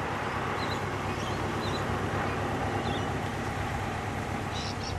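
Steady rush of highway traffic going past, an even wash of tyre and engine noise with no single vehicle standing out.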